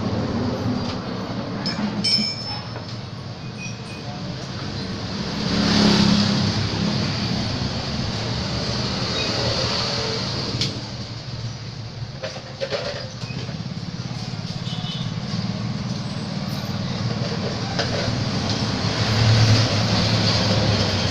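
Steady noise of motor vehicles going by, swelling twice as they pass, with a few short metal clinks of hand tools.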